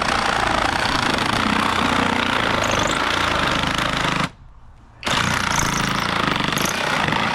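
Reciprocating saw running and cutting, in two runs with a brief stop about four seconds in.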